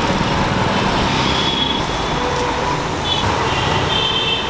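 Steady roar of road traffic noise, with a few brief faint high-pitched tones partway through.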